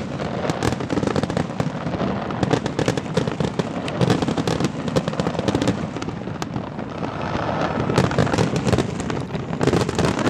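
Large aerial fireworks display: a dense, unbroken barrage of shell bursts and crackling, with the bursts coming thickest near the end.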